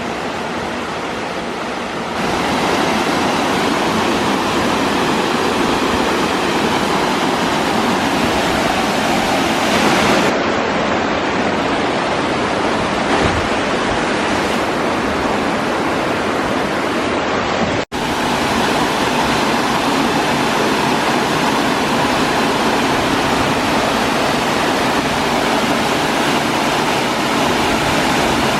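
Waterfall: a loud, steady rush of falling water. It steps up in level about two seconds in and cuts out for an instant about two-thirds of the way through.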